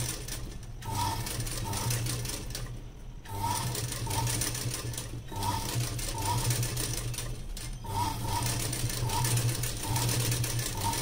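Durby sewing machine running, stitching gold lace trim onto the edge of a blouse, stopping briefly every two or three seconds as the fabric is guided.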